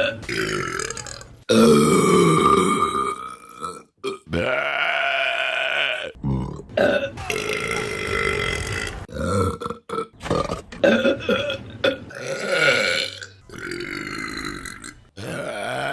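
A run of long burps from women, one after another: about eight or nine, each lasting one to two seconds, with short breaks between them.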